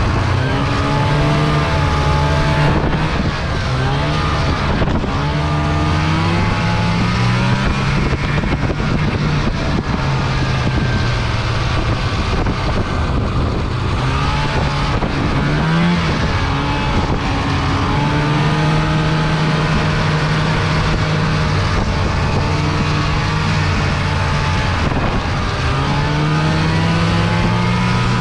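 Snowmobile engine running under way, its pitch rising and falling again and again as the throttle is worked, over a steady rush of noise.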